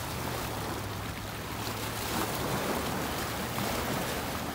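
Small waves washing against the rocks at the foot of a seawall, with wind on the microphone. A steady low hum runs underneath.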